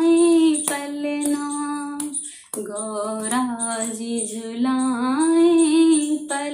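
A woman singing a Hindi devotional bhajan solo, unaccompanied, in long held phrases. She takes a short breath about two seconds in.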